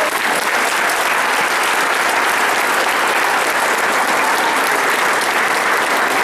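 Many people applauding, a dense and steady clapping that holds at one level throughout.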